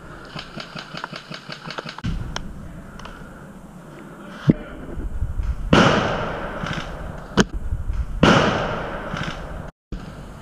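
Footsteps and rustling in dry leaf litter as an airsoft player moves, then two loud rough bursts of leaf and clothing noise as he gets down into position. A couple of sharp single clicks stand out. The sound cuts out briefly near the end.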